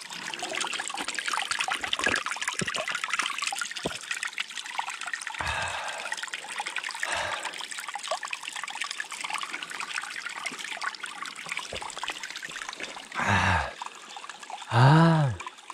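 Running water trickling steadily, a continuous hissing flow. Near the end a man's voice makes two short sounds.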